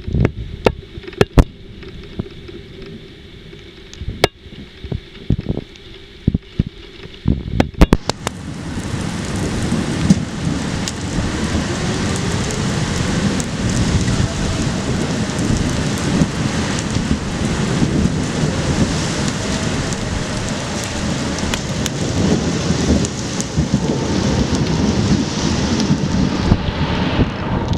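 Scattered heavy drops striking hard surfaces in sharp, separate hits. About eight seconds in, a heavy downpour sets in and keeps up as a dense, steady rush.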